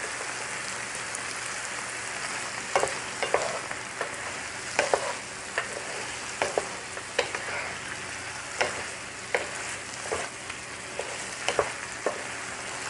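Shrimp sizzling in a frying pan as the sauce reduces. A wooden spatula stirs them, knocking and scraping against the pan in irregular sharp clicks from about three seconds in.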